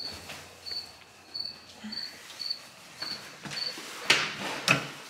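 A short, high-pitched chirp repeating just under twice a second, which stops after about three and a half seconds; then two loud, sharp noises about four seconds in.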